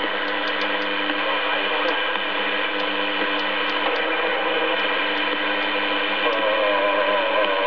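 Braun SE 411 CB transceiver's speaker hissing steadily with band noise and steady whistle tones while the channel selector is stepped, with faint irregular clicks. A wavering tone comes in about six seconds in.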